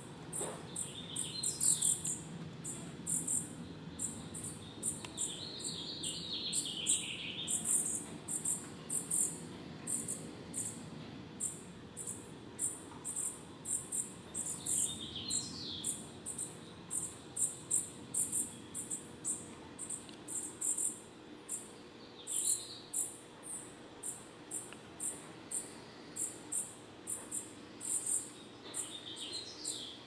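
Small songbirds, song sparrows and dark-eyed juncos at a seed feeder, giving short high chirps in five brief clusters. Under them runs a very high-pitched pulsing, two to three pulses a second, which is the loudest repeating sound.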